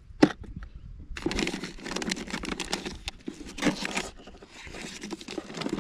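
Rustling, crinkling handling noise with many small clicks, denser in the middle, after one sharp click near the start.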